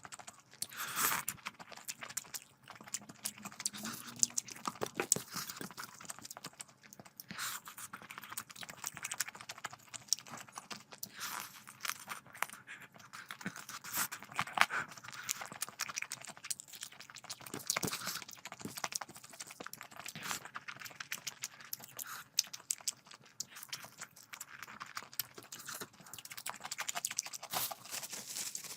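Close-miked chewing and wet mouth sounds of a person eating rice and curry, with frequent sharp smacks and clicks.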